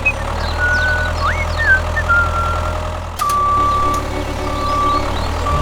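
Steady low rumble of a running vehicle engine, with short chirping whistles over it. From about three seconds in, a high electronic beep starts repeating, each beep under a second long, like a reversing alarm.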